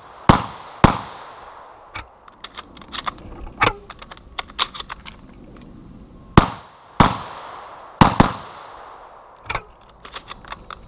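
Shotgun firing six shots: two close together near the start, then four in quick succession a little over halfway through. Between the strings come lighter clicks and snaps of shells being pulled from spring-clip shell caddies and loaded into the gun.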